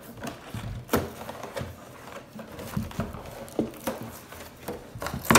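Toy packaging being handled: plastic and foil wrappers rustling, with irregular sharp clicks and light knocks, the loudest near the end.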